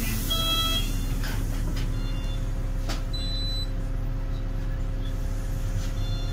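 Steady engine and road rumble with a constant hum inside a moving city bus. A short electronic beep sounds just after the start, and a single click about three seconds in.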